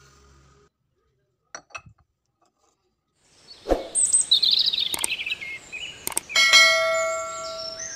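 Sound effects for an animated logo and subscribe-button end screen. After about three seconds of near silence come a low hit, a run of twittering bird-like chirps, two sharp clicks, and a ringing bell-like ding that holds for more than a second.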